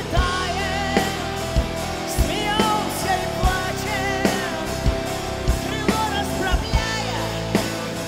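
Live rock band playing a song, with a drum kit keeping a steady beat under a wavering lead melody with vibrato.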